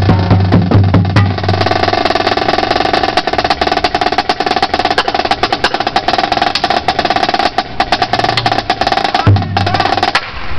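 Marching drumline playing: pitched bass drums hit together at first, then a long, very fast snare drum roll. The bass drums come back briefly near the end, and the playing stops just before the end.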